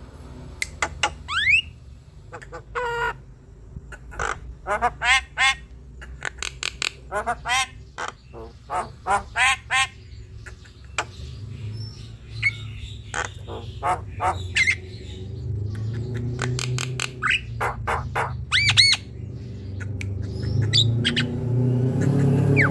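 Javan myna chattering in full song: a run of short, sharp squawks and quick rising whistles, many of them in tight clusters of several notes.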